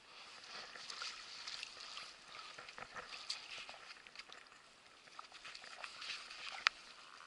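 Quiet splashing and lapping of pond water with scattered small clicks as a sturgeon is let out of a landing net at the water's edge, with one sharp click near the end.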